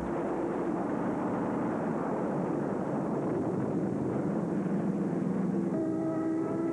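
Propeller aircraft engine drone: a steady rushing noise, joined near the end by a steady pitched engine hum.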